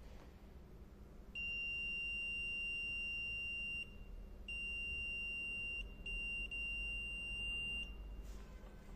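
Kingbolen BF200 brake fluid tester's buzzer giving a steady high-pitched beep in three long stretches, each about one and a half to two and a half seconds. This is its warning that the brake fluid holds enough moisture that it must be replaced; good fluid sets off no sound.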